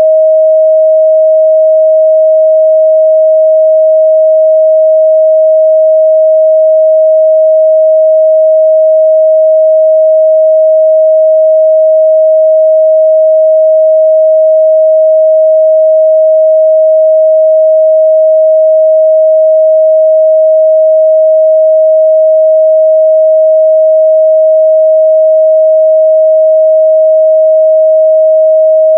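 A steady, pure 631 Hz sine-wave test tone, held at a constant loud level with no change in pitch.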